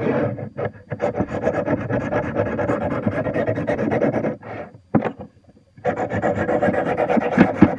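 Steel knife blade scraping back and forth on a Smith's TRI-6 sharpening stone wetted with honing solution: rapid rasping strokes that grind metal off a dull edge to raise a burr. The strokes pause about four and a half seconds in, then start again about a second later.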